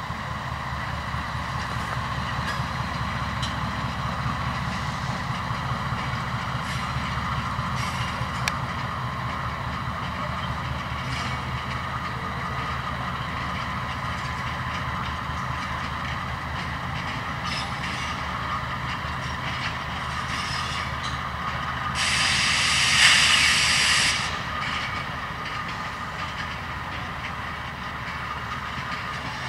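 Diesel locomotive running slowly past with its passenger coaches: a steady low engine rumble with a fine even pulse and a few sharp clicks. About 22 seconds in comes a loud burst of hiss lasting about two seconds.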